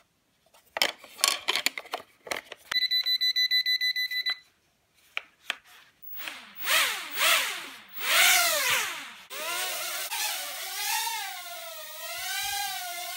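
A few plastic clicks and rattles, then a rapid electronic beeping about a second and a half long. The XK X100 micro quadcopter's motors then spin up and down several times in swooping whines, and settle into a steady whine with a wavering pitch as the quad hovers.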